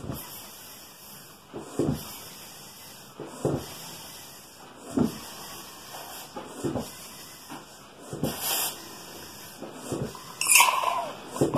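Foot-operated air-mattress pump worked in a steady rhythm, about one stroke every one and a half seconds. Each stroke is a short puff of air pushed through a hose into a small hole in a chicken egg to blow out its contents. A sharper hiss comes near the end.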